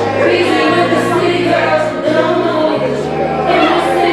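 Singing over music: several voices sing together above a bass line that steps from note to note about once a second.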